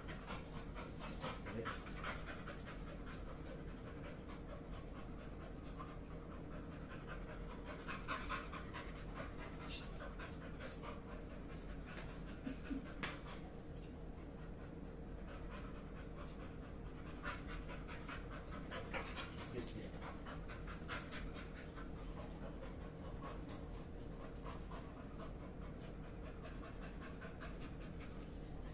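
Labrador dog panting steadily, with a few louder bursts along the way.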